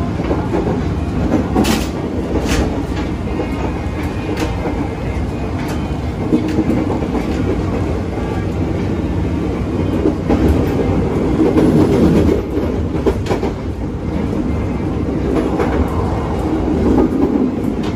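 Inside a JR 205 series electric commuter train car running along the line: a steady rumble from the car and its wheels, with sharp clicks of the wheels over rail joints every few seconds at no regular spacing.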